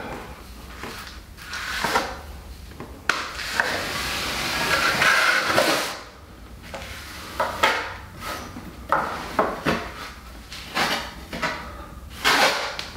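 Steel taping knives scraping along a shower threshold's inside corner, pressing reinforcing fabric into wet liquid waterproofing membrane. The scraping comes in uneven strokes, with one longer pass about three to six seconds in.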